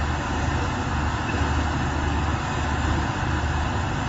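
Steady background noise with a low rumble underneath and an even hiss above, no distinct events.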